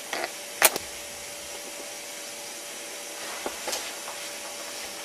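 Steady hiss of background noise, with a few short sharp clicks, the loudest about half a second in.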